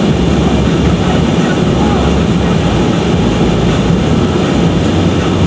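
Steady road and engine noise heard from inside the cabin of a moving car, a continuous low rumble.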